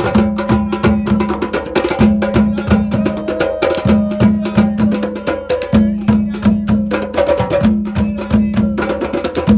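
African hand drumming: many sharp, fast strokes over a low pitched pattern that repeats every second and a half or so.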